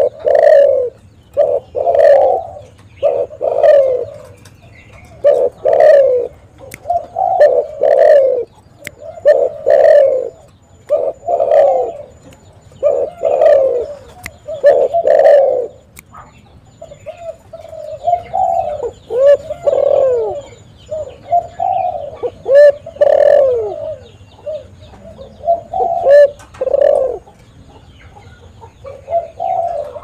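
Spotted dove (tekukur) cooing: a long run of low coos, about one every second or so. The coos become looser and more gliding in the second half and turn quieter near the end.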